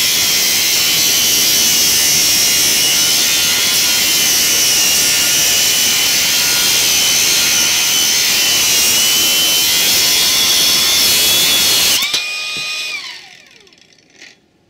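Kress KU801 angle grinder's cut-off disc cutting a rusty metal bar: a loud steady grinding hiss with a high whine. About 12 seconds in, the disc leaves the metal, the grinding stops suddenly, and the motor's whine falls in pitch as it winds down.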